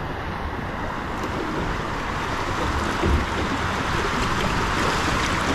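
Steady rush of running water on a water slide, growing slowly louder.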